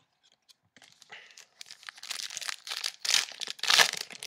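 Plastic-foil wrapper of a trading-card pack crinkling and tearing as it is opened by hand. It starts about a second in and is loudest near the end.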